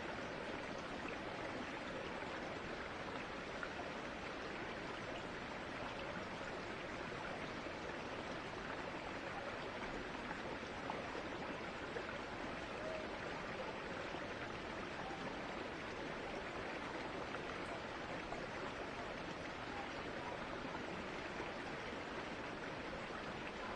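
Steady, even rushing of a small woodland stream, with no distinct events standing out.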